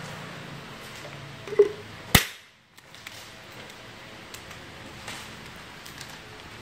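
Handling a roll of plastic sealing film and its blue plastic reel holder: a knock about one and a half seconds in, then a sharp snap, followed by a few light ticks and clicks.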